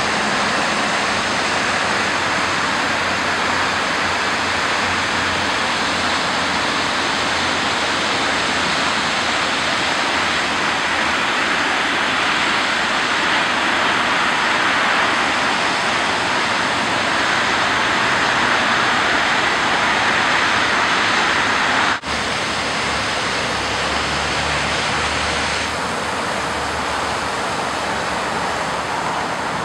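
Rain-swollen creek in spate: a loud, steady rush of fast-flowing water. About two-thirds of the way through it breaks off for an instant, then carries on slightly quieter as whitewater pours across a concrete channel.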